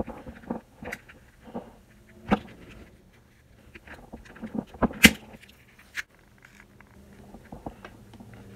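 Plastic snap-fit clips of a Pocket Juice power bank's case clicking and cracking as a small screwdriver pries the seam open. A few sharp clicks with small scraping ticks between them; the loudest comes about five seconds in.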